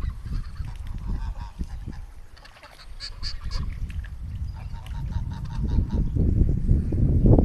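Domestic geese honking over a steady low rumble, getting louder near the end.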